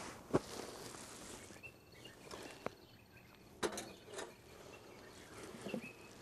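A few scattered light knocks and clinks, about five in all, as metal and glass coffee and cooking utensils are handled and set down on a carpet.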